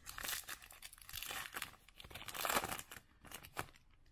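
A foil trading-card pack being torn open and its wrapper crinkled in a string of crackly bursts, the loudest about two and a half seconds in.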